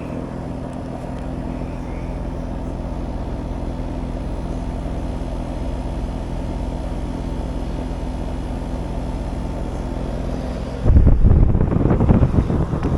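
Air-conditioner outdoor unit running with a steady electrical hum while it is charged with refrigerant, the system being low on charge. About eleven seconds in, a loud rush of wind on the microphone covers it.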